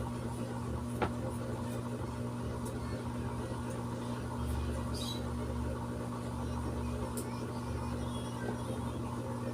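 Screws being driven into a scooter's air filter cover: a few small clicks and faint squeaks over a steady low hum.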